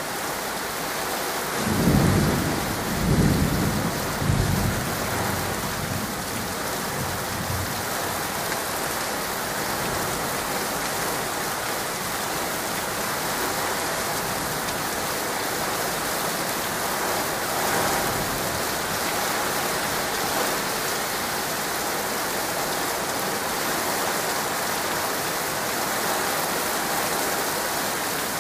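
Steady thunderstorm rain hissing, with a rumble of thunder that rolls in about a second and a half in, swells three times and dies away by about five seconds; a fainter swell follows later on.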